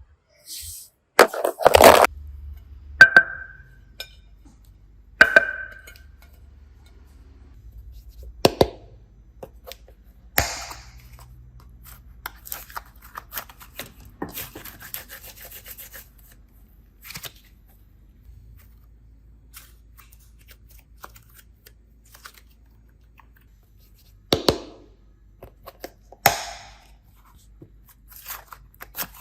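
Scattered clicks, taps and knocks of small objects being handled, about a dozen over the stretch. Two of them, about 3 and 5 seconds in, ring briefly with a short clear tone, as a hard plastic or glass item does when tapped.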